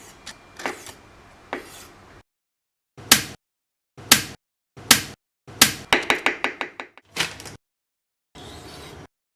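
A series of sharp knocks: single strikes about a second apart, then a quick run of about eight in a second, then a few more.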